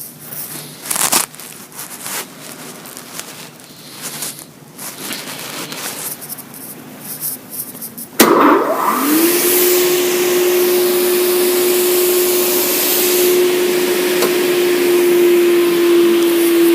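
Oliver Model 232-D table saw: a few knocks and rustles, then about eight seconds in the saw is switched on. Its motor and blade spin up within a second to a steady whine over a loud, even hiss.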